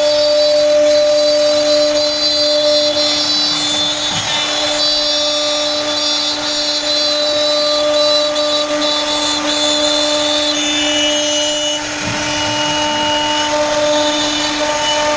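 CNC router spindle running with a steady high whine as it cuts a jali pattern, the pitch holding constant with slight dips in level about four seconds in and again near twelve seconds.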